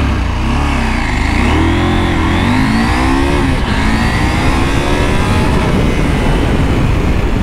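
Husqvarna Norden 901's 889 cc parallel-twin engine pulling hard from a standstill under full acceleration. Its pitch climbs, dips briefly at the shift into second about two seconds in, then climbs again as the bike heads past 100 km/h.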